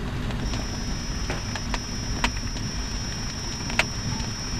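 Campfire crackling, with scattered sharp pops at irregular intervals over a low steady rumble. A steady high-pitched tone sets in about half a second in and holds.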